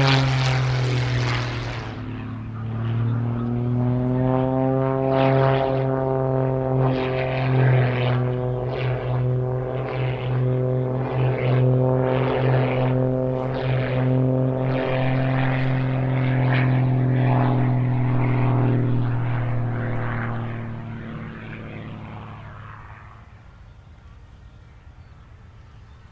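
Propeller aerobatic aircraft's Lycoming AEIO-540 six-cylinder boxer engine running at high power. It passes close at the start with a falling pitch, then holds a steady drone with small rises and falls. It fades away over the last few seconds.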